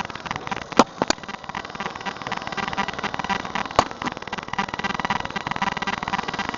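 Lawnmower engine running steadily, with three sharp clicks or knocks, two close together about a second in and one near the four-second mark.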